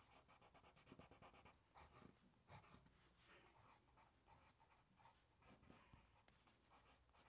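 Faint scratching of a pencil drawing on paper, in short irregular strokes.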